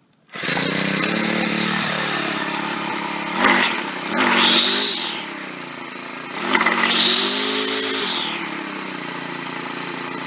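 Troy-Bilt TB425CS two-stroke gas string trimmer engine running, revved up twice to speed and back down to idle, with a high whine that rises and falls each time the trimmer head spins up. It is the test run after a new lower drive shaft was fitted, the shaft now turning the head.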